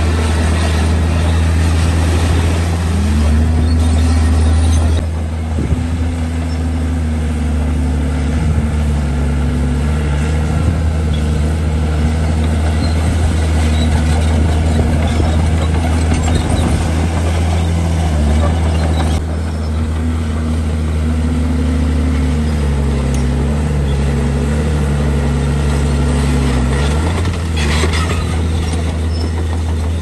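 Heavy diesel engine of earthmoving machinery running hard, its pitch rising and falling repeatedly as the revs change under load.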